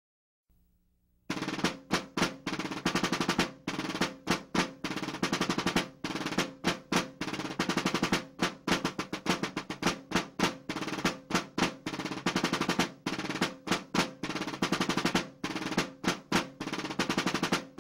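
Snare drum music with rapid rolls and strikes, starting about a second in, over a low steady held tone.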